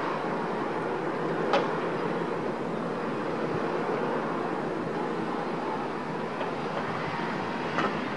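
Steady, even hum of distant city traffic, with two short clicks, one about a second and a half in and one near the end.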